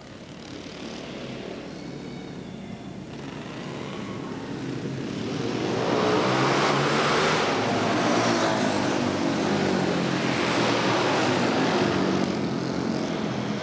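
Engines of several flat-track racing motorcycles running hard at race pace. The sound grows louder over the first six seconds as the pack comes near, then stays loud.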